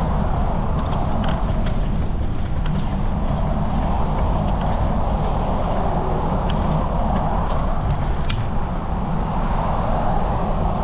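Wind rushing over a GoPro's microphone during a bike ride, a steady low rumble with scattered light clicks and rattles.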